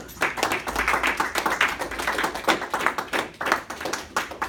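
A small audience applauding: many hands clapping together, thinning out near the end.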